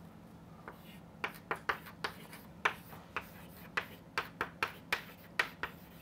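Chalk tapping and scraping on a chalkboard as words are written by hand: an irregular run of sharp taps, with a faint steady hum underneath.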